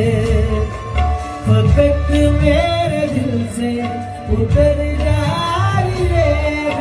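Live male vocalist singing a slow, ornamented Hindi-Urdu love song in a semi-classical style, with long gliding held notes, to harmonium and drum accompaniment.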